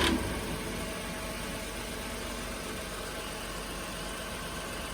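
Nissan Pathfinder idling with a steady, even hum. The louder clatter stops right at the start.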